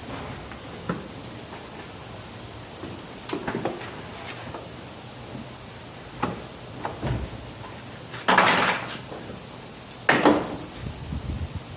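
Scattered clunks and knocks of parts and hand tools being handled during a car body teardown. There are two louder, half-second clatters about eight and ten seconds in.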